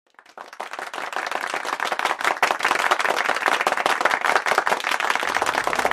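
Audience applauding: dense clapping from many hands that fades in over the first second and then holds steady.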